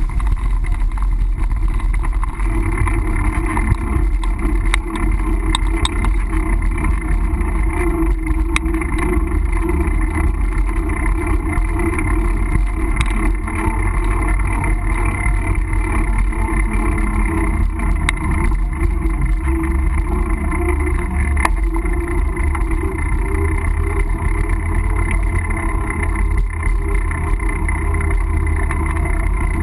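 Steady low rumble of wind and riding noise on a bike-mounted GoPro camera during a mountain-bike ride, with a few brief clicks and rattles.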